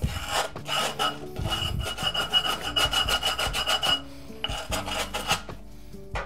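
Rapid scraping strokes of a hand tool along the edge of an abrasive sheet glued onto a flat disc grinder's plate, filing the grit off the overhanging edge so the paper can be trimmed flush, the way skateboard grip tape is trimmed.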